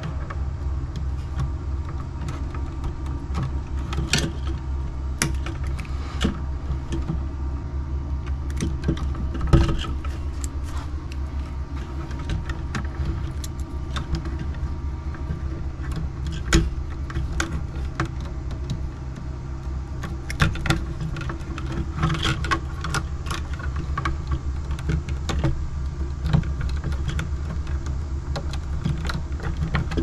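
Small metallic clicks and rattles of wire strippers and stiff copper wires being handled and stripped at an electrical box, over a steady low hum.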